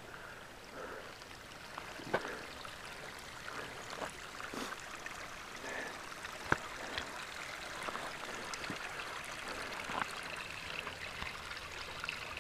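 Mountain stream water running and trickling in a steady wash, with a few sharp clicks scattered through it.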